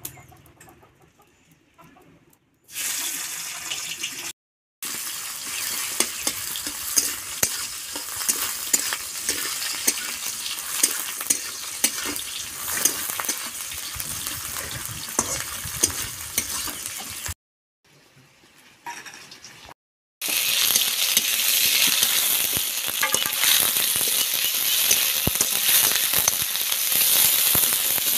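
Sliced mahua fruit sizzling as it fries in hot oil in a steel kadai, with a metal spatula scraping and clicking against the pan as it is stirred. The sizzle starts about three seconds in and grows louder and hissier near the end.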